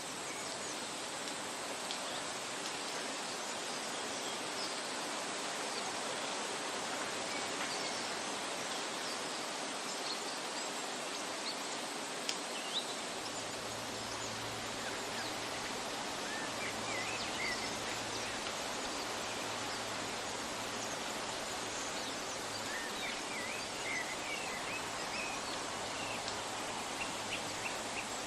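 Steady rushing of flowing water with scattered bird chirps, more of them in the second half. A low hum joins about halfway through.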